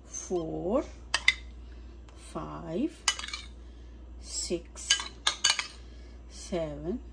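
Metal spoon clinking and scraping against bowls as thick yogurt is scooped out a tablespoon at a time, a series of sharp irregular clicks.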